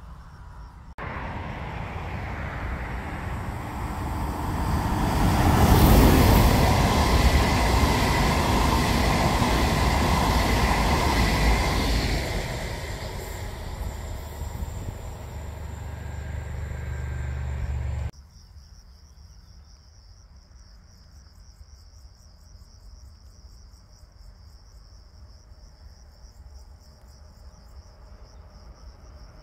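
Train passing at speed on the rails, rising to a peak about six seconds in and then fading. It cuts off abruptly a little past halfway, leaving crickets chirping steadily.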